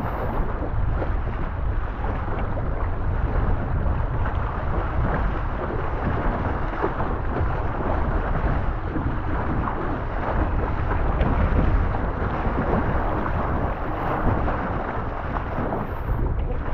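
Strong wind buffeting the microphone: a steady, rough rush without any clear tone, heaviest in the low end, rising and falling in gusts.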